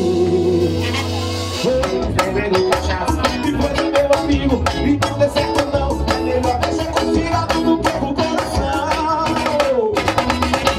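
Live band music: a male singer at the microphone over drum kit and percussion. Held notes open, then the band settles into a steady beat.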